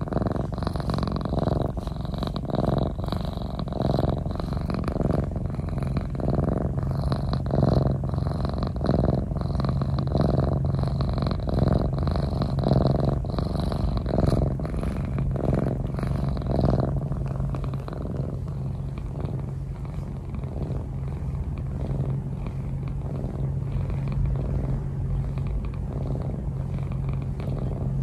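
Domestic cat purring close to the microphone: a steady low rumble that swells and eases with each breath, about one and a half breaths a second, growing a little softer about two-thirds of the way through.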